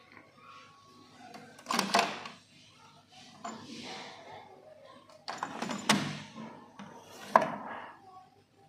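Plastic clunks and clicks of a Technics 630T cassette deck's cassette door being opened and a cassette being handled and slotted in, with a clunk about two seconds in, a rattle of the tape going in around six seconds, and a sharp snap of the door being pushed shut near the end, the loudest of them.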